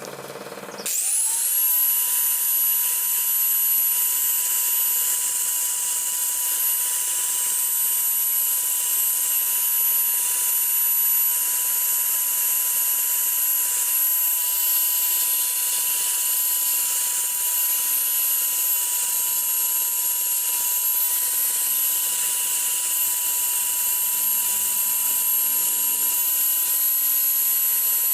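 High-speed rotary grinder spinning up about a second in, then running at a steady high whine, used for porting a motorcycle cylinder block.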